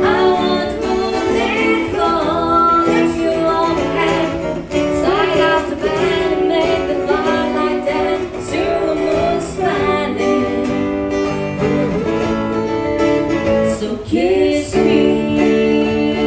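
A song with strummed acoustic guitar and a singing voice, playing steadily throughout.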